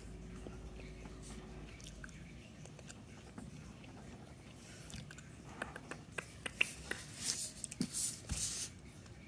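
Quiet desk handling: a faint hum, then from about halfway in a run of small clicks and taps with short scratchy rustles, as markers and paper are handled.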